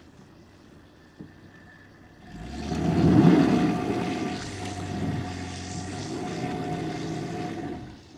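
Audi A6 C5 2.8 quattro's V6 engine revving up hard about two seconds in and held high for several seconds as its wheels spin in mud and snow, the car dug in and stuck; the revs drop away just before the end.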